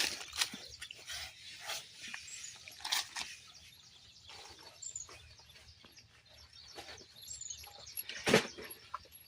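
Outdoor ambience: birds chirping in short falling calls, with scattered clicks and knocks; the loudest knock comes near the end.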